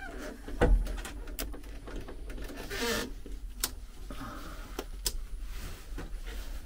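A heavy thump under a second in, then scattered sharp clicks and knocks with a brief rustling swell in the middle.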